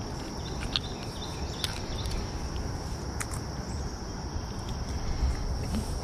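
Steady high-pitched chorus of insects, with a low rumble underneath and a few short clicks now and then.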